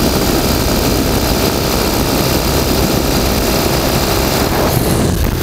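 Motorcycle engines running while riding at speed, with steady wind rush on the microphone.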